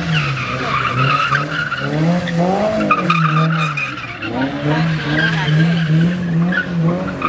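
A car engine revving hard while it drifts and spins its tyres in snow. The revs climb and drop several times and hold high for stretches.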